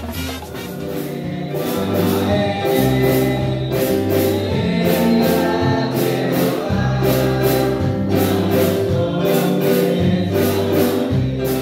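Background music: a Christian song with group singing over bass and a steady beat.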